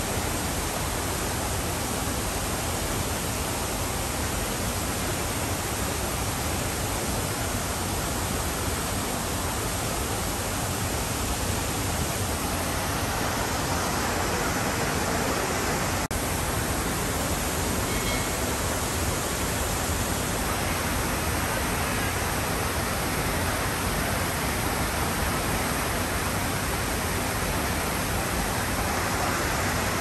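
Steady rushing and splashing of an ornamental fountain's row of water jets falling back into its pool.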